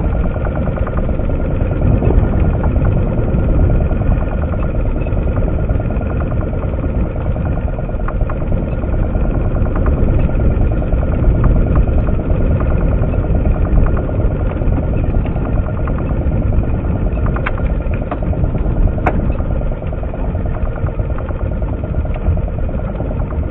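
Outboard motor running steadily, heard from aboard the small boat it drives, with a few faint clicks near the end.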